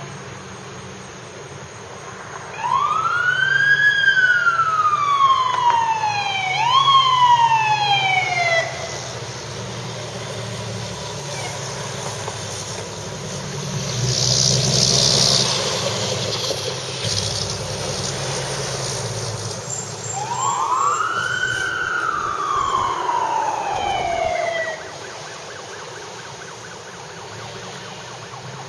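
Fire engine's Federal Q mechanical siren wound up twice: each time it rises quickly, then slowly coasts back down, the first time with a second short wind-up before it fades. The truck's engine runs low underneath, with a short hiss about halfway through.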